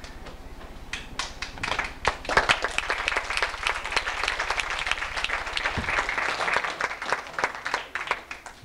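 A small group clapping: the applause starts about a second in, fills out quickly, and dies away near the end.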